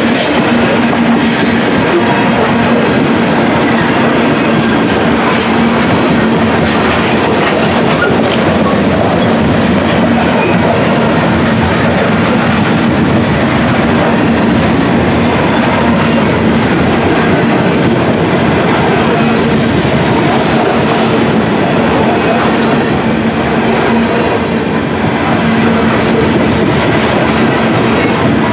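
Freight train of covered hopper cars rolling past: a loud, steady rumble of steel wheels on rail with rapid clickety-clack over the rail joints and a steady low hum underneath.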